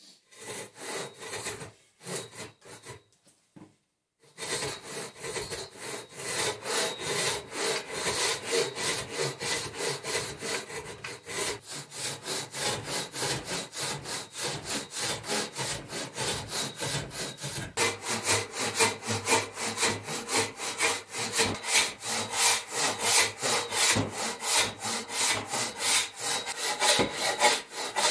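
Homemade Roubo frame saw cutting a log by hand, with its long toothed blade rasping through the wood in push-pull strokes. It starts with a few short, halting strokes, then settles into steady sawing at about two strokes a second.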